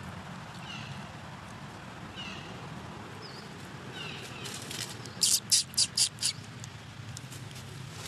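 Baby long-tailed macaque crying in short, squeaky calls that fall in pitch, about one every second or so. A little past the middle comes a quick run of five loud, shrill calls.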